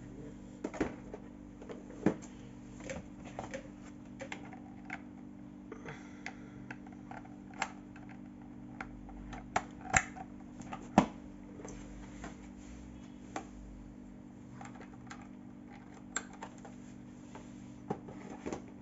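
Irregular sharp clicks and knocks from plastic equipment and cables being handled, over a steady low hum.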